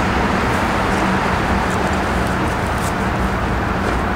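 Steady rushing outdoor background noise, with faint rustles and clicks of someone stepping over dry grass and opening a canvas backpack.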